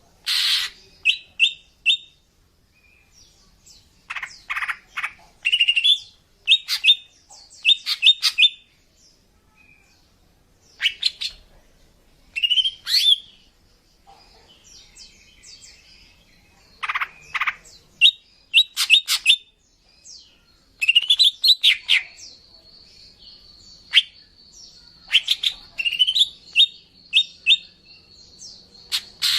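Female greater green leafbird (cucak ijo) calling, a call of the kind used to lure males: irregular clusters of short chirps and quick rising notes, with a thin, steady high whistle in the last few seconds.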